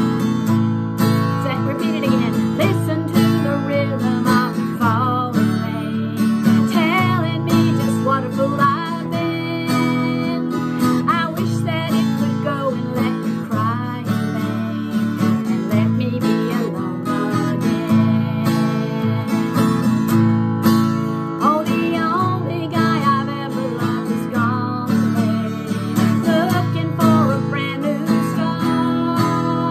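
Acoustic guitar strummed steadily, with a capo on the second fret, chording in G, while a woman sings along.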